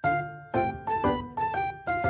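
Background music: a light melody of quick single struck notes, each ringing and fading.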